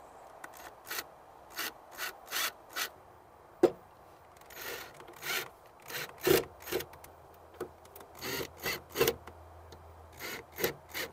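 Cordless drill/driver running screws into a boat's fiberglass side to mount a round courtesy light, in many short, irregular bursts with some sharp clicks.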